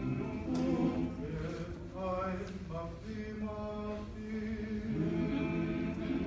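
A group of people singing together without instruments, holding long notes and moving from note to note like a hymn.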